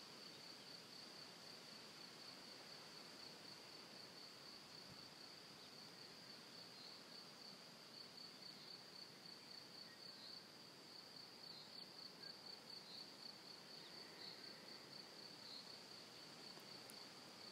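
Near silence with faint, steady, high-pitched chirring of insects.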